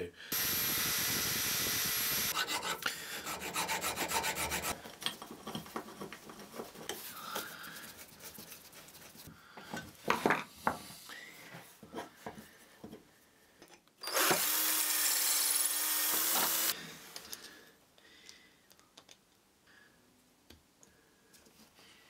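A power tool runs in two short bursts, about two seconds near the start and about two and a half seconds past the middle. Between them come a stretch of rapid scraping and scattered clicks and knocks from parts handled on the workbench.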